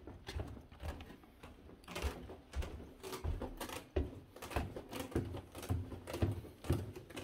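Footsteps of a person walking up a stairwell, about two steps a second.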